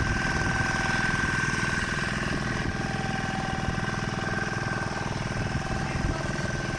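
Fishing boat's engine running steadily under way, an even rapid pulsing with a steady high whine over it.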